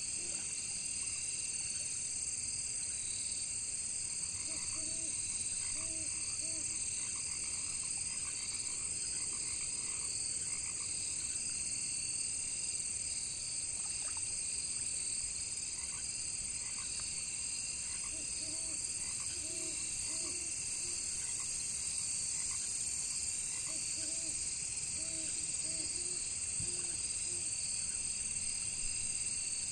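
Frogs croaking in short runs of a few calls, with long gaps between runs, over a steady high-pitched chorus of crickets.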